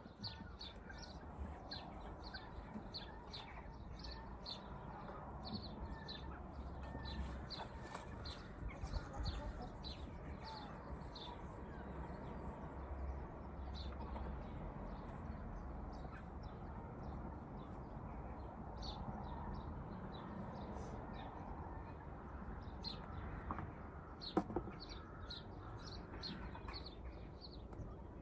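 Chickens clucking, with many short high chirps repeating throughout over a steady low rumble. There is one sharp knock about 24 seconds in.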